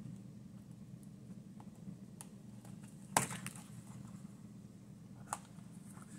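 A small taped package being pulled open by hand: a sharp crackle about three seconds in and a lighter click about two seconds later, with faint handling clicks, over a steady low hum.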